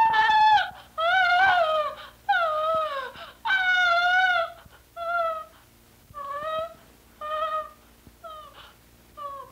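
A woman wailing and sobbing hysterically: a string of high, wavering, falling cries, long and loud at first, then shorter and fainter toward the end.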